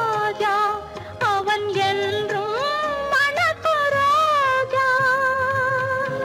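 A woman's voice singing a slow, sad Tamil film song melody with sliding, ornamented turns, settling near the end on one long held note.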